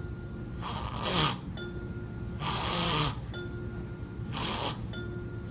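An adult making loud snoring sounds: three long snores about a second and a half apart.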